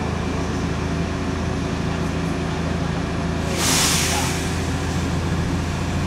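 Inside the cabin of a Heuliez GX 127 city bus: its Iveco Tector 6 six-cylinder diesel engine running with a steady low hum. A little past halfway comes a sharp hiss of compressed air from the bus's air system, lasting under a second.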